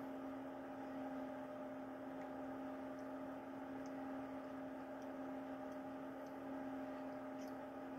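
Quiet room tone: a steady electrical hum over a soft hiss, with a few faint clicks.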